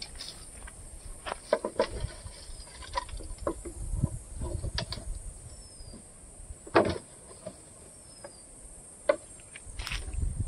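Steady high-pitched insect buzz in the forest, with scattered clicks, knocks and rustles of movement and handling on the leaf-strewn ground. The sharpest knock comes about seven seconds in.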